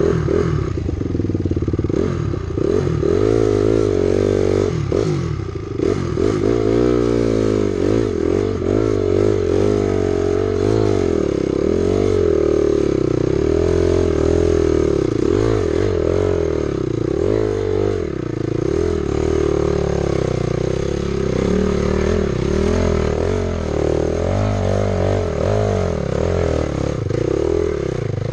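Two-stroke dirt bike engine running hard, its revs rising and falling again and again as it is ridden along a rutted dirt trail.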